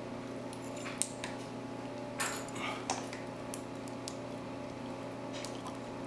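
Light metallic clicks and taps of a lock and lock-picking tools being handled, a few scattered clicks over a steady low hum.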